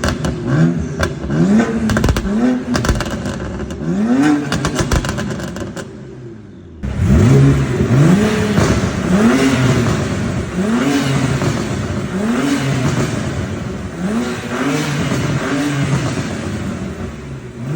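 BMW 535i's N54 twin-turbo inline-six, with downpipe and muffler delete, being free-revved in a series of short blips, each rising and falling in pitch, about fifteen in all with a brief drop to idle about six seconds in.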